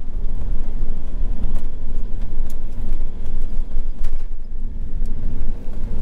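Steady low rumble of an RV's engine and tyres on the road, heard from inside the cab while driving, with a few faint ticks.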